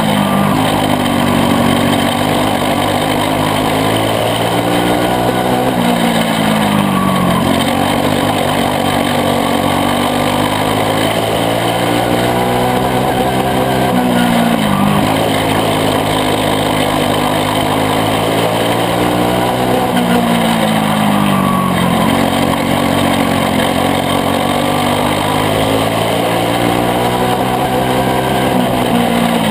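Caged dirt kart's single-cylinder Briggs & Stratton Animal four-stroke engine racing laps, heard onboard at full throttle. The engine note climbs along each straight and drops off into each turn, about every seven or eight seconds.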